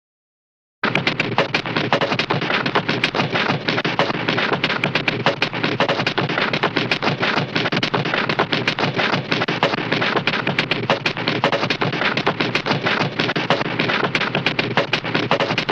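Cartoon fight sound effect: a long, dense, rapid string of sharp cracks and hits, starting about a second in and cutting off suddenly at the end.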